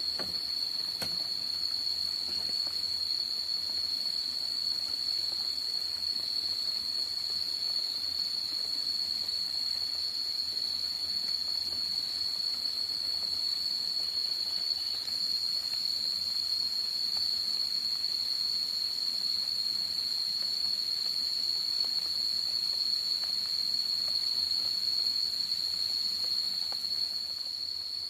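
A steady, unbroken high-pitched insect drone over a faint background hiss.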